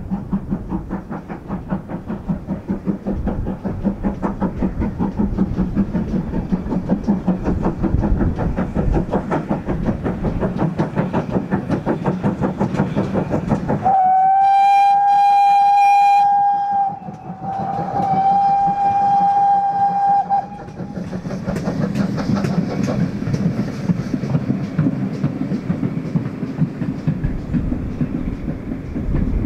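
Double-headed GWR steam locomotives working a train, with a fast, even rhythm of exhaust beats and wheel noise. About halfway through, a GWR steam whistle sounds two long blasts of about three seconds each, then the rhythmic working carries on.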